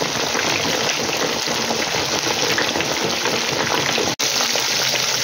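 Flour-coated butter snoek (ribbon fish) pieces deep-frying in hot oil in an electric deep fryer: steady, dense sizzling and bubbling, which cuts out for an instant about four seconds in.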